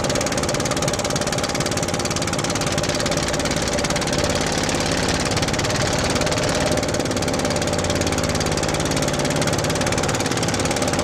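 A boat's engine running steadily, with a rapid, even knocking beat.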